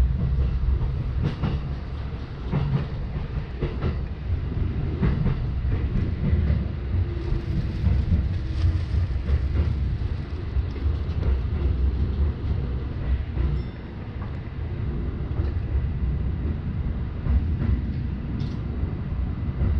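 Commuter electric train heard from inside the car, running over the rails with a low rumble and clicks over the rail joints. It slows into a station and grows quieter in the last few seconds as it comes to a stop.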